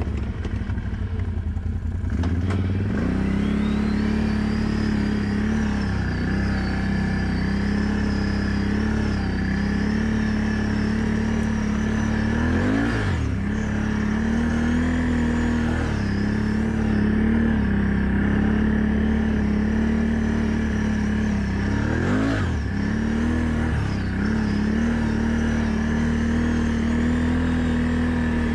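ATV engine running under way, revving up about two seconds in and then holding steady. Twice, about a third and three quarters of the way through, the revs dip briefly and climb again as the throttle is eased off and reapplied.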